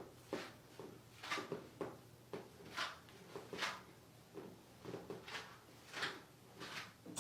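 A massage therapist's hands sliding and rubbing over the body in short repeated strokes, about ten soft swishes, roughly one or two a second.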